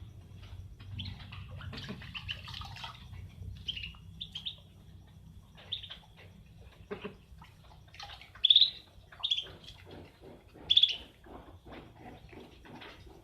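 Chicken calling in short high chirps, with two louder calls about eight and a half and eleven seconds in. Through the last few seconds there is a regular run of short sounds, about three a second.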